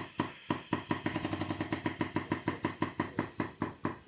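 Hydraulic pump of a frame-bench pulling ram pulsing steadily at about five strokes a second, tensioning the pulling chain to draw out a dent in a car's rear panel.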